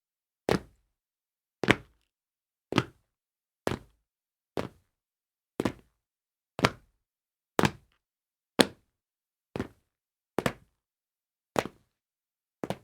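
Feet landing on a tile floor after jumps: a short, sharp thud about once a second, thirteen times, with silence between. Some landings show two quick hits close together.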